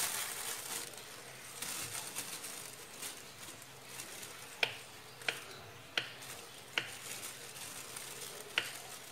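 Knife slicing a banana on a wooden cutting board: five sharp taps of the blade on the board, starting about halfway through, the first four evenly spaced under a second apart. Under them is a faint steady hiss, like oil frying.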